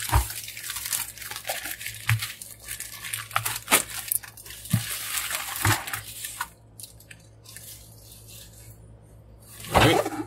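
Plastic mailer bag crinkling and tearing as a cardboard box is pulled out of it, with many sharp crackles; the handling goes quieter about six seconds in, and a short louder knock or rustle comes near the end.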